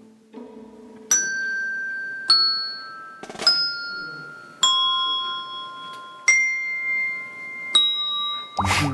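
A set of colourful tap-style desk bells struck one at a time, six ringing notes of different pitch about a second and a half apart, played slowly as a short tune. Each note rings on and fades until the next strike.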